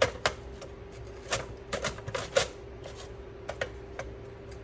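Half an onion being slid across a plastic mandoline slicer's blade: short crisp cutting strokes and clacks in irregular clusters, over a faint steady hum.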